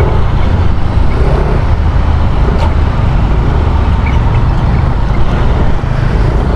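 Yamaha NMAX 155 scooter's single-cylinder engine running steadily at riding speed, under a loud low rumble of wind and road noise.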